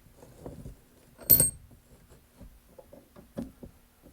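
One sharp hammer blow on a steel chisel set against a seized mower-deck spindle bearing, about a second in, with a brief high metallic ring; a few light knocks and clicks of the work shifting around it. The bearing does not split: the work is not held solid on the bench.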